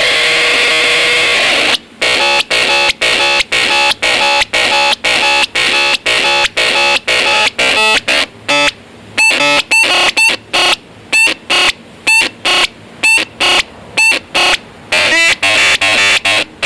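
Boombox Synth 2 electronic synth playing harsh noisy tones. First a steady buzzing tone, then from about two seconds in a stuttering run of short bleeps and noise blasts, chopped off and restarted about twice a second.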